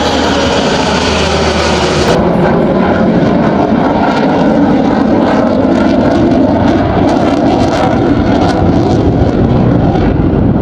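Sukhoi Su-30MKI fighter jet's twin turbofan engines, heard as a loud, steady jet noise from the display flight. About two seconds in the sound turns duller as its hiss falls away.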